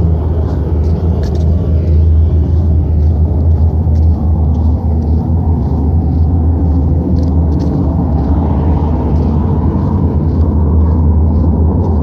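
Loud, steady low rumbling hum filling the air, with faint regular footsteps over it; the recordist was later told by the local government that it came from a gas line rupture about four miles away.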